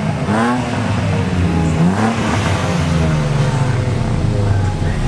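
Car engine being revved, rising sharply in pitch twice in the first two seconds, then held at steadier revs.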